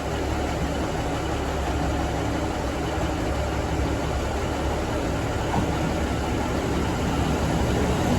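Steady low rumble and hum of a vehicle in motion, heard from inside.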